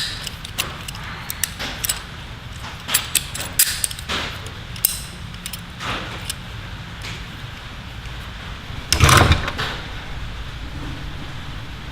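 Metal hand tools clinking and clattering as they are handled and pulled from a tool bag, with a louder knock about nine seconds in, over a steady low hum.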